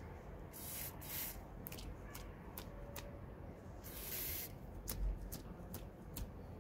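Spray paint aerosol can hissing in two short bursts, about a second in and again about four seconds in, with scattered sharp clicks in between.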